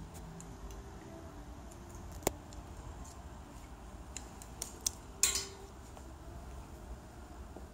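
Handling noise from dresses on hangers being moved on a clothes rack: a few sharp clicks and a short rustle just after five seconds, over a low steady hum.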